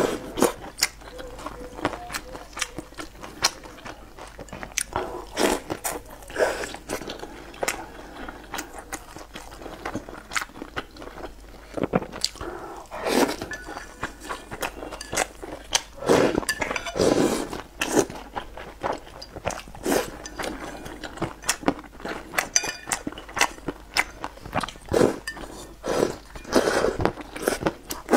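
Close-miked eating sounds: slurping and chewing with sharp mouth smacks and clicks, coming in irregular bursts, and chopsticks now and then clinking against the ceramic bowl.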